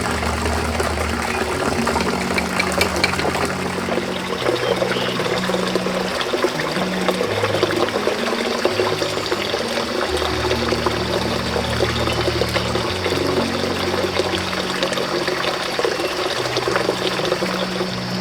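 Water running and splashing steadily, under background music with held low notes.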